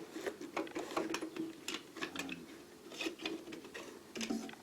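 Irregular clicks and light clattering of small metal items in a small box as it is lifted out of a lathe toolbox.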